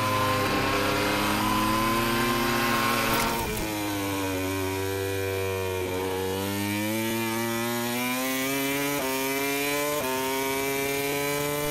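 Onboard sound of a MotoGP Honda's V4 and a Formula 1 car's V6 turbo engine at racing revs, heard together. The engine note climbs, drops sharply about three and a half seconds in as the revs fall off, then climbs again in several steps, with a quick dip in pitch at each upshift.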